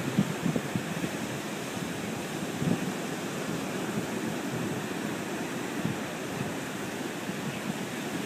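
Steady wash of ocean surf, with wind buffeting the microphone in small irregular gusts.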